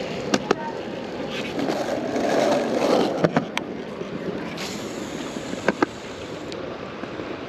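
Sharp clicks in pairs from a baitcasting rod and reel being handled, over a rushing noise that swells and fades in the first few seconds.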